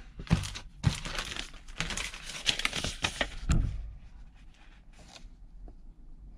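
Crinkling and rustling of a clear plastic bag and paper sheets being handled. It is loud and continuous for the first three and a half seconds, then settles into a few softer rustles.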